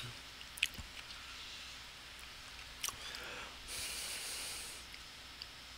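Faint microphone hiss with a couple of soft clicks, and a breath drawn at the microphone about four seconds in.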